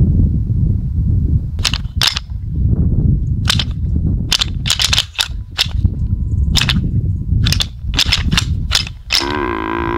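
Deer rattle bag worked between the hands: irregular sharp clacks in quick clusters over a low rumble, the sound of antlers meeting, made to draw in a buck. Near the end a short wavering pitched sound joins in.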